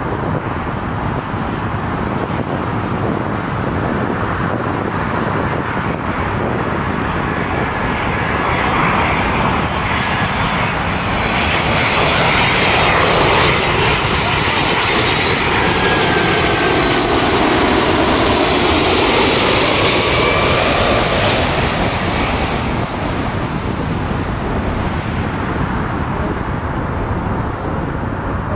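Boeing 767-400ER's twin turbofan engines on a low final approach. The jet noise swells to its loudest as the airliner passes over, with a sweeping, phasing quality and a faint whine, then eases off.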